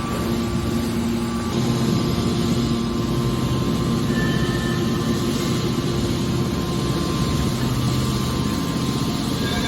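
Mobile scrap metal baler's power unit running steadily, a constant mechanical hum with a few held tones.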